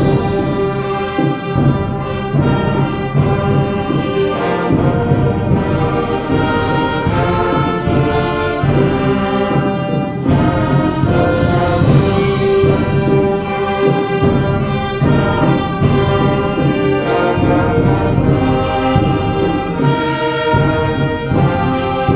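Young concert band playing continuously, with the brass to the fore over sustained chords.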